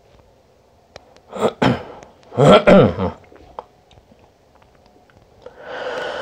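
A man's vocal sounds that are not speech: short throaty bursts about a second in and again around two and a half seconds in, then a long breath out near the end.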